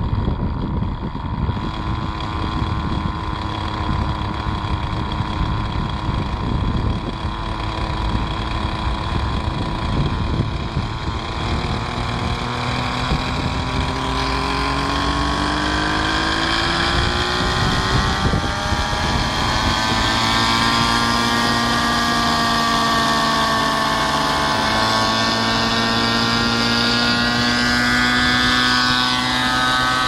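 Raptor 50 Titan RC helicopter's two-stroke nitro glow engine running at a steady low pitch, then rising in pitch as the rotors spool up about twelve seconds in, holding a higher steady note with rotor whir toward liftoff. Wind buffets the microphone throughout.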